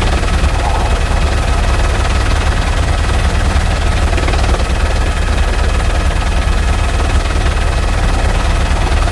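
Helicopter rotor noise: a steady, fast low chop under an even rushing hiss.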